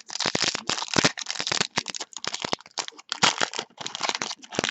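Crinkling and rustling of a foil trading-card pack and the cards in it being handled, a quick, irregular run of short crackles.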